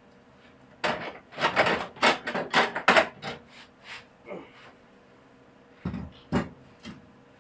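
Metal clunking and scraping as a Kohler Command CH18 engine is lifted out of a John Deere 317 garden tractor's frame. A quick clatter starts about a second in and lasts a couple of seconds, then a few lighter knocks follow, and two heavier thumps come near the end.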